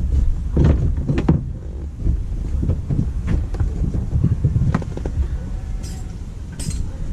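Irregular knocks and clunks of hands working on a car, over a steady low rumble.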